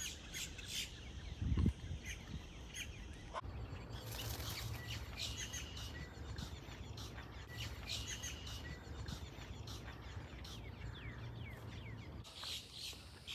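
Small birds chirping and calling repeatedly in short, high notes over a steady low background rumble, with one low thump about a second and a half in.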